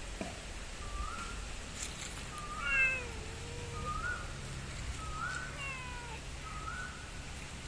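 Domestic cat meowing: one drawn-out meow with a falling pitch about three seconds in, and a softer, shorter meow around six seconds. A short, high rising chirp repeats about once a second underneath.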